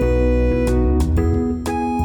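Background music: a keyboard-led instrumental tune with a steady beat and new notes about every half second.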